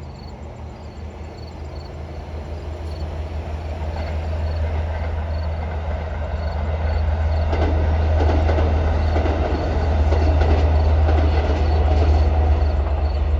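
Long Island Rail Road diesel push-pull train approaching and going over a bridge: a steady low engine drone grows louder, and about halfway through the wheels start clacking over the rail joints.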